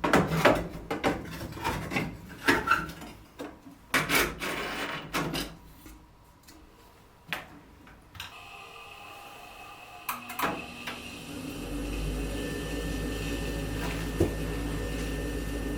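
Clattering and knocks of metal parts and tools being handled on a gas furnace. About eight seconds in, the furnace's freshly freed draft inducer motor starts with a steady whine. A low, steady rumble joins a few seconds later as the furnace comes up to running.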